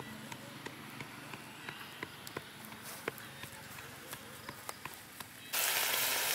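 Quiet evening outdoor ambience with insects and scattered soft clicks and ticks. About five and a half seconds in it cuts to a loud, steady sizzling hiss from a steaming cooking pot.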